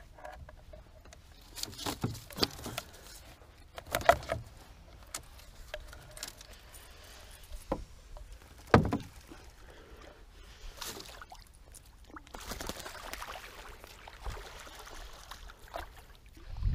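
Scattered knocks and clatter of gear being handled in a small boat, with a sharp loudest knock about nine seconds in and a softer rustling stretch a few seconds later.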